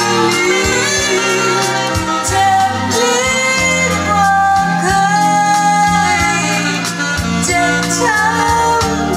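A song with a sung vocal melody over a steady bass and instrumental backing, played from a vinyl LP on a Thorens TD 295 MK IV belt-drive turntable.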